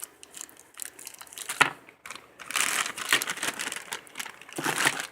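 Packaging crinkling and rustling in bursts as it is handled, with a single sharp click about a second and a half in.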